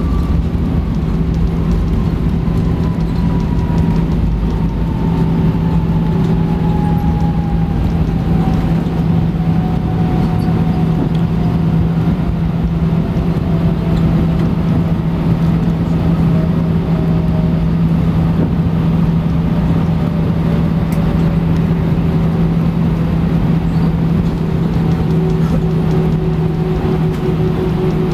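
Airbus A320 cabin noise heard from a window seat over the wing during the rollout after landing: a steady, loud rumble with a constant hum. Through the first half a faint whine falls slowly in pitch as the engines wind down.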